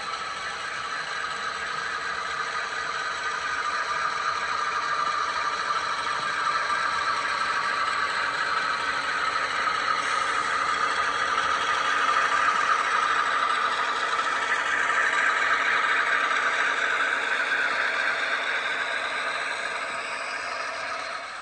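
HO scale model diesel locomotives running along the track: the whirring of their motors and gears and the rattle of their wheels on the rails, with some squeal. The noise grows louder as the locomotives approach, is loudest around the middle, and eases as they pass near the end.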